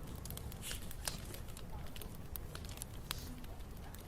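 Wood fire burning, with irregular sharp snaps and pops of crackling wood over a steady low rumble of flame.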